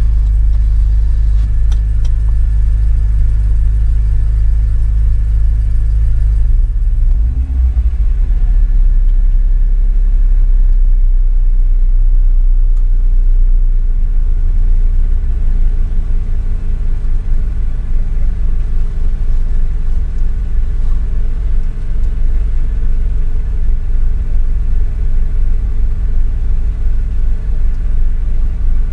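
2013 Subaru WRX's turbocharged flat-four idling, heard from inside the cabin as a steady low rumble that shifts in tone about seven seconds in.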